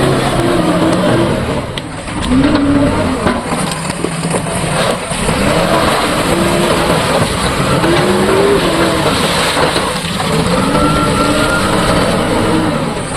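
Diesel engine of a JCB 3DX backhoe loader running loud, its revs rising and falling about every two seconds as it works.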